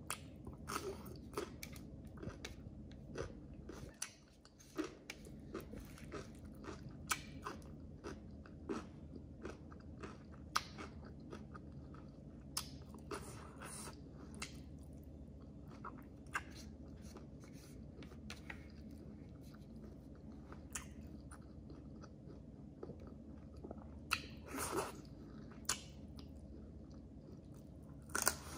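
A person chewing and biting food close to the microphone: irregular sharp crunches and mouth clicks, with a couple of longer crunching sounds near the end.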